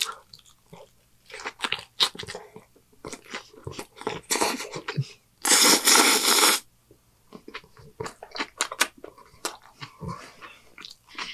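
Close-miked chewing of a cheeseburger: irregular wet mouth clicks and crunches from biting and chewing, with a louder noisy burst of about a second a little over halfway through.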